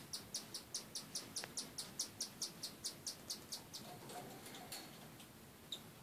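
A week-old cockatiel chick giving high, rapid begging chirps, about five a second, while a parent bends over it to feed it. The run stops a little over halfway through, followed by a couple of single chirps.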